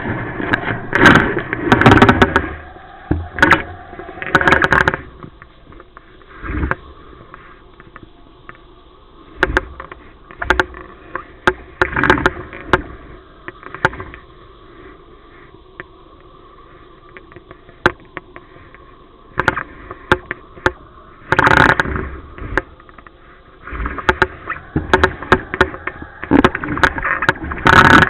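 Water splashing and slapping against a kiteboard skimming flat water, with wind on the microphone and many sharp knocks. It comes in loud, uneven bursts at the start and again from about two-thirds of the way in, with a quieter stretch between.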